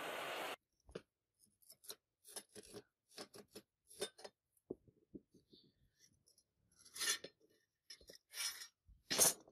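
A gas torch's hiss cuts off about half a second in. Then a rubber mallet knocks the rusted sword's steel cross-guard in a run of short sharp knocks. Near the end, three short metal-on-metal scrapes come as the loosened guard is slid along the rusty tang.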